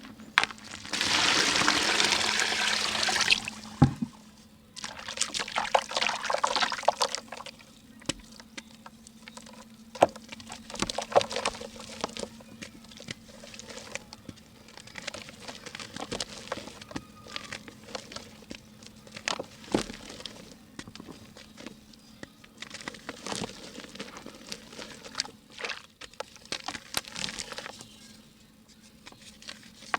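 Dry pink mud being crumbled into water. A steady pour runs for about two and a half seconds near the start, followed by soft, irregular crackles and wet clicks from the crumbling and mixing.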